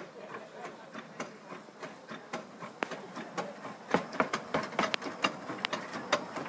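Footsteps crunching on gravel: a quick, irregular run of sharp crunches that becomes louder and denser about four seconds in.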